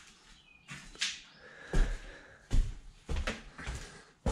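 Footsteps and knocks of someone walking across a bare, debris-strewn floor in an empty room, about half a dozen irregular thuds.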